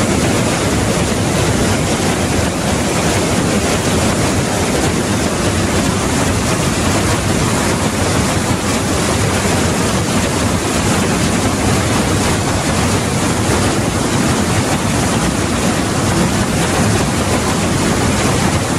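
Trümmelbach Falls' glacial meltwater plunging through a narrow rock gorge: a loud, steady rush of falling and churning water.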